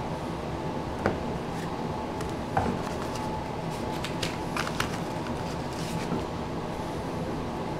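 1989 Topps baseball cards being handled by hand, with a few short, sharp paper clicks and rustles as the cards are slid and flipped, over a steady background hum.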